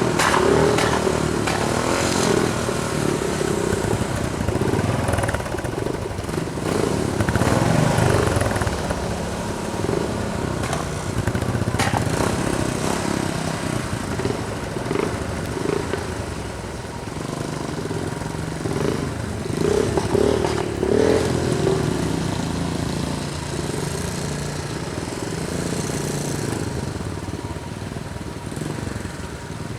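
Vehicle engines running on the road, their pitch wavering up and down as they idle and rev.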